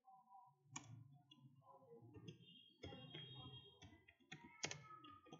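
Faint typing on a computer keyboard: scattered soft key clicks, with a few sharper keystrokes among them.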